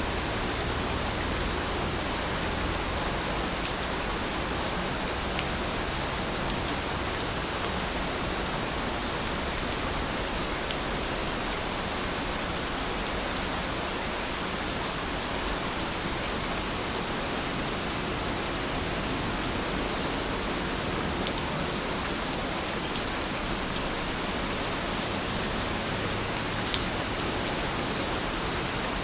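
Steady rainfall, an even hiss of many drops, with an occasional single louder drop tick.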